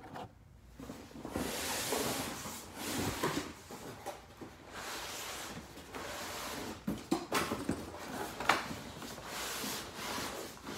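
Cardboard box and packaging rustling and scraping as a drive shaft is pulled out of it, with a few sharp knocks and clicks in the second half.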